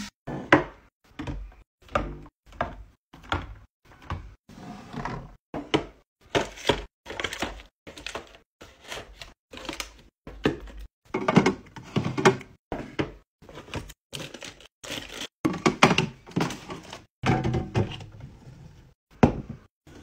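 Packaged snacks and plastic cups being set into a clear plastic fridge bin: a run of short clacks, thunks and packaging rustles, about one burst a second with brief silent gaps between.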